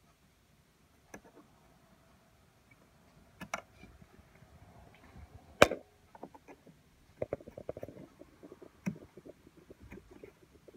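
Small hardware being handled by hand during an iMac RAM upgrade: scattered clicks and knocks with one sharp, loud click about five and a half seconds in, then a quick run of small rattling clicks.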